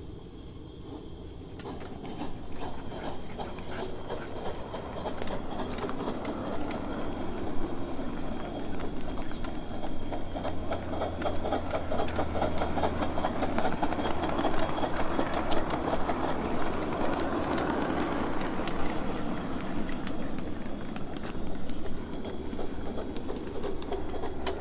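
Coal-fired ride-on live steam locomotive getting under way and running along the track, its wheels clattering with rapid clicking on the rails. It starts quieter and builds up over the first few seconds.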